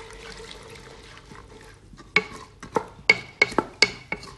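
Masala gravy paste frying faintly in hot butter in a granite-coated nonstick pot. From about halfway through, a spatula stirs it, knocking against the pot about three times a second.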